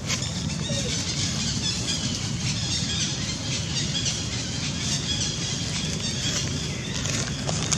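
Steady outdoor background noise: a low rumble under a high hiss, with faint high chirps. Near the end there is a brief crackle, like dry leaves underfoot.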